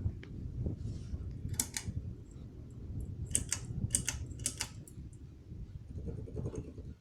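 Ceiling fan running, a steady low rumble of moving air and motor, with a scattering of short sharp clicks and rattles through it as it is being switched off.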